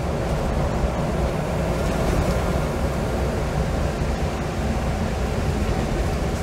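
Scania L94UB bus's diesel engine and drivetrain running steadily under way, heard from inside the passenger saloon, with road and tyre noise mixed in.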